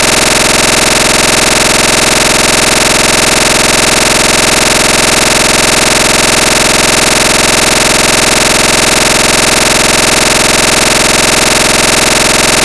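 Loud, harsh, unchanging digital buzz across all pitches: a glitched audio track repeating a tiny fragment over and over, with no change in level or pitch.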